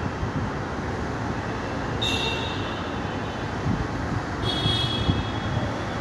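Steady low rumbling noise with scattered knocks, broken twice by a brief high-pitched squeal, about two seconds in and again about four and a half seconds in.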